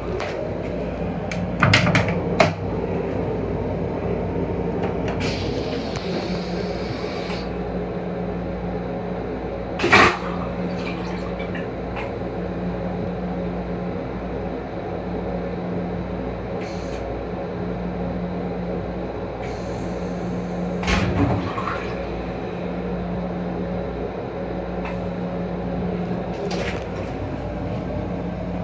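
Metro-North M7 railcar vacuum toilet flushing: about two seconds of rinse-water hiss, then one short, loud whoosh about ten seconds in. Under it runs a steady hum, with a few knocks near the start and about two-thirds of the way through.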